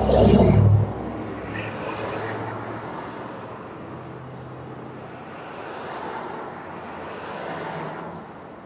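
Vehicles passing on the street, heard from inside a parked car: a loud close pass in the first second, then softer rushes that swell and fade.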